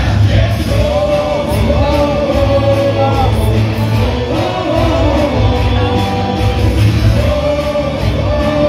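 Baseball cheer song played loud over a stadium sound system, with a heavy bass beat and a gliding melody, and a crowd of fans singing along.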